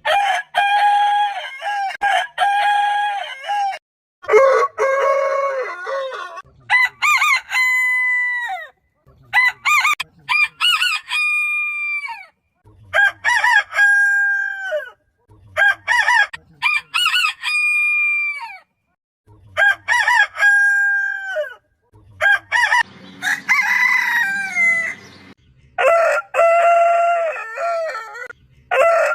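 Roosters crowing one after another: about nine long cock-a-doodle-doo crows at different pitches, many ending with a falling drawn-out note.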